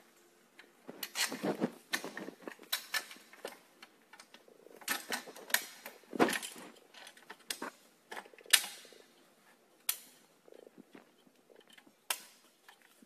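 Steel frame tubes and plastic fittings of a children's trike clicking, knocking and rattling as they are fitted together by hand: an irregular string of sharp clacks, the loudest about eight and a half seconds in.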